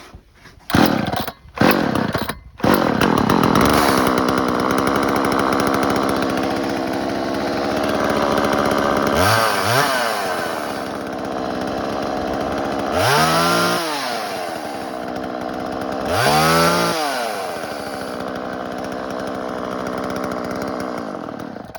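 Craftsman Model 358 38cc two-stroke chainsaw firing in a few short bursts, then catching about two and a half seconds in and running steadily. It is revved up and back down three times, then cuts off suddenly at the end.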